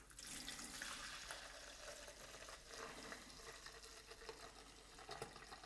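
Cleaning concentrate pouring from a plastic canister into a plastic measuring jug: a faint, steady splashing stream.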